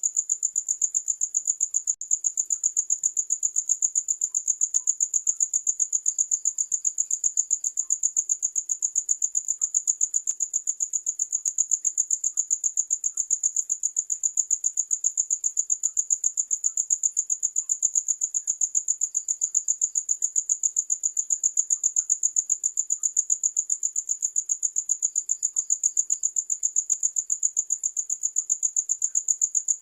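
Crickets chirping: a loud, high-pitched, continuous trill pulsing in a rapid, even rhythm, with a fainter, lower chirp now and then.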